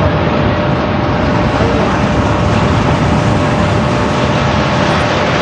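Steel roller coaster train running along its track: a steady, loud rumble and roar of the wheels on the steel rails, with a faint steady hum running through it.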